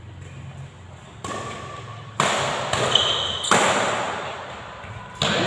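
Badminton rally: about five sharp racket strikes on a shuttlecock, irregularly spaced, each ringing on in the hall's echo, with a brief high squeak near the middle.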